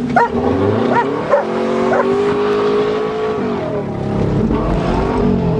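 Subaru Legacy engine revving up under acceleration and holding a high note, then dropping and climbing again near the end. A dog barks several short times in the first two seconds.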